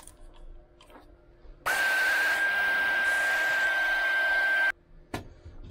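Handheld heat gun blowing for about three seconds, with a steady whine over the rush of air. It switches on and cuts off abruptly, shrinking heat-shrink butt connectors on spliced wires.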